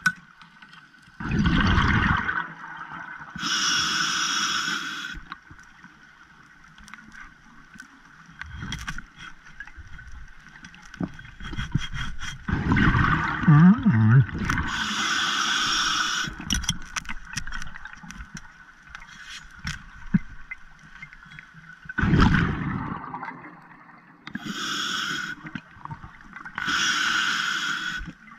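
Underwater breathing of a scuba diver through a regulator: a bubbling rumble of exhaled air about every ten seconds, each followed by a hissing breath, with scattered faint clicks and scrapes between.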